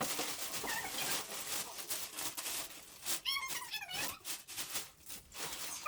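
Cardboard box and packing material rustling and scraping as the tire carrier is pulled out of its box, a dense run of crackles and rubs. About three seconds in come a couple of short high-pitched vocal sounds.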